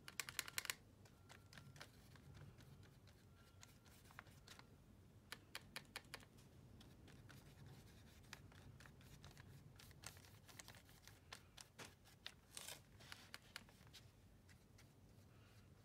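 Faint scratching and tapping of a paintbrush working acrylic poster paint on paper and against a paint palette, heard as scattered clusters of small clicks with quiet stretches between, the loudest cluster right at the start.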